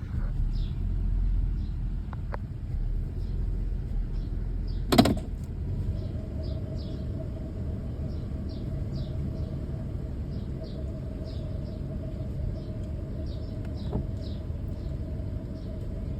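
2002 Toyota Tundra engine running with an uneven low sputter, the weird noise it has developed. A sharp click comes about five seconds in, and a steady whine sets in just after it.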